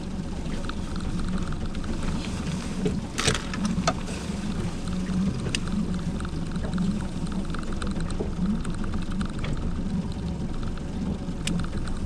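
Steady low rumble and hum of a small fishing boat sitting on the water, with a few sharp clicks, the loudest about three seconds in and another near the end.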